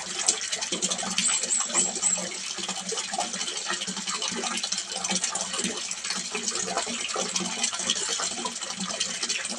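Water splashing and trickling into a small fish pond, a dense steady patter of small drops over a low steady hum. About a second in, four short high chirps sound in quick succession.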